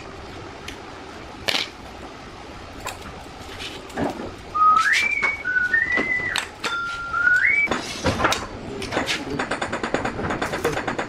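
Light clinks and knocks of square steel tubing and magnetic welding clamps being set on a concrete floor. A few clear whistled notes, rising in steps and held, come in the middle, and a quick run of ticks near the end.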